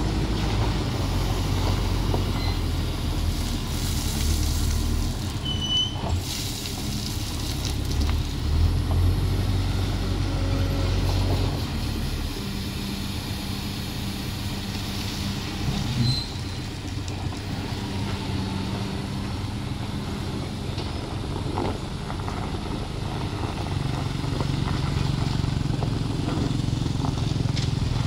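Heavy truck's diesel engine running steadily on a steep climb. Its note changes about twelve seconds in, and there is a short sharp sound about sixteen seconds in.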